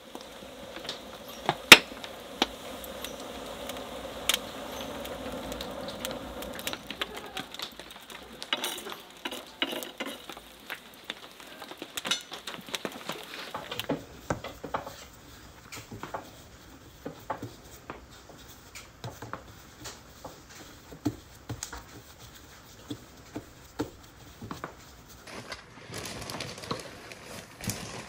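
Scattered light clicks and clinks of small objects being handled, the loudest a sharp click about two seconds in. A steady hiss runs under the first half and stops abruptly about halfway through.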